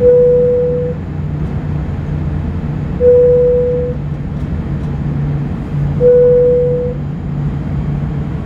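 Airliner cabin chime ringing three times, about three seconds apart, a single mid-pitched tone each time that rings for about a second and fades, over the steady hum of the cabin. It is the chime series sounded just before takeoff, telling the cabin crew that takeoff is imminent.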